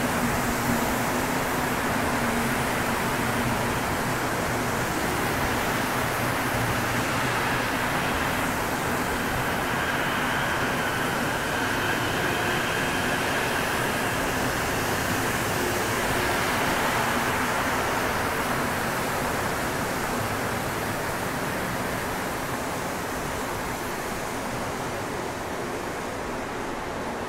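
Montreal Metro rubber-tyred subway train running past at a station platform: a steady rushing of wheels and motors, with a higher whine in the middle stretch, easing off toward the end as the train moves away.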